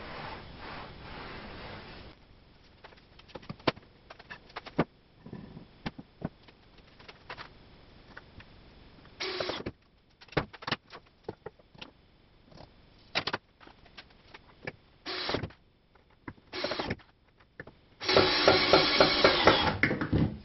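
Cordless drill-screwdriver driving long screws into a wooden 2x4 table leg: several short bursts of the motor, then a longer run of about two seconds near the end with a regular pulsing, and clicks and knocks of the wood and clamp being handled in between.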